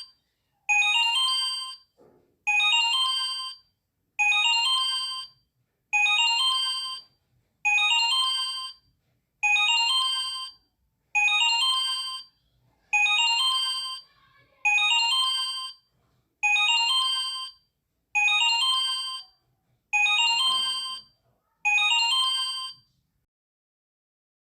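Smartphone incoming-call ringtone: a short, bright phrase of several quick chiming notes, repeated over and over about every second and three-quarters, stopping near the end.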